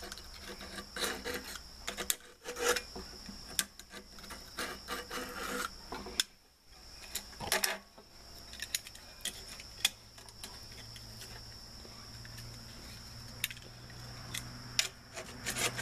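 A blade scraping old fiberglass gasket and cement out of the metal gasket channel of a fireplace insert, in irregular short rasping strokes with a brief pause partway through. A faint steady high tone runs underneath.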